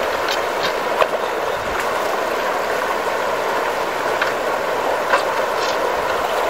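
Shallow river water rushing steadily over a stony riffle, with a few sharp clicks of a shovel striking stones in the gravel riverbed.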